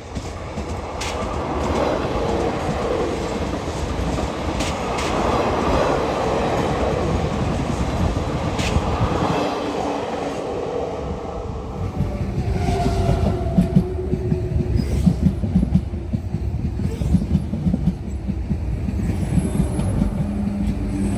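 A train passing close by: a steady rolling rush, then from about twelve seconds in a clickety-clack of wheels over rail joints, with faint whining tones.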